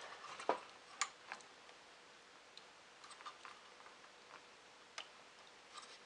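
Sparse small clicks and taps at irregular intervals, the sharpest about half a second and a second in: a floppy disk drive and its cable connectors being handled inside an opened Amiga 500.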